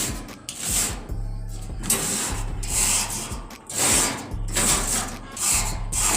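Wire rust-removal brush scrubbing rust off the metal bars of a dog cage, in repeated scraping strokes with a short pause about a second in.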